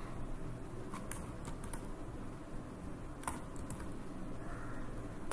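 A handful of scattered computer keyboard keystrokes, the copy and paste shortcuts, as single sharp clicks a second or two apart.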